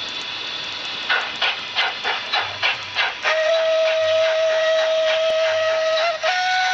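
Sound decoder of a TRIX model SBB C5/6 steam locomotive playing steam sounds through its small onboard speaker. It starts with a steady hiss, then about a second in comes a chuff about three times a second. About three seconds in a long steady whistle blast starts, and near the end, after a brief break, it steps up to a higher note.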